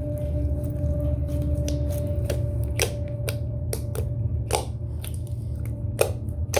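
Slime being squished and poked by hand, making scattered sharp sticky clicks and pops, over a steady low hum.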